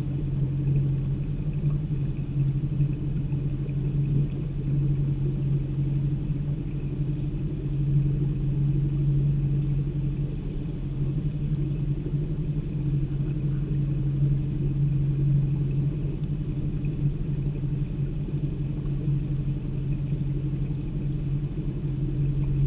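Boat motor running steadily at low speed, a constant low hum.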